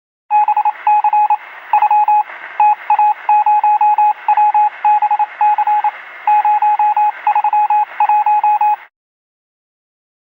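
Electronic beeping in rapid short groups at one pitch, over a steady hiss heard through a narrow, telephone-like band. The beeps cut off suddenly just before the end.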